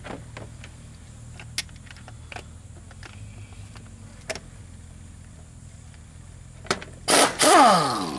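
A few light metal clicks and taps of hand tools on the mower's spindle nuts, then about seven seconds in a power tool on a socket runs loudly for about a second and winds down, its pitch falling.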